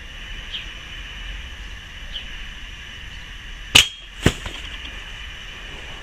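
Airsoft sniper rifle firing: two sharp cracks about half a second apart, the first louder, over a steady background hiss.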